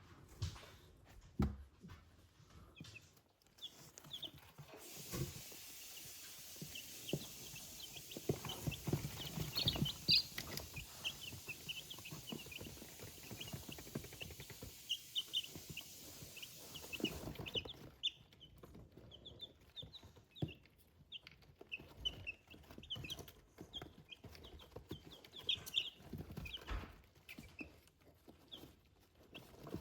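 Week-old chicks peeping: many short, high cheeps one after another, with soft knocks and rustling underneath. A steady hiss starts about five seconds in and cuts off suddenly a little past the middle.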